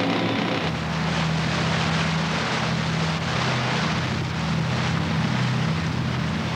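Sea rescue cruiser running at speed through choppy water: a steady engine drone under a loud rush of wind and water. This begins with a sound cut less than a second in.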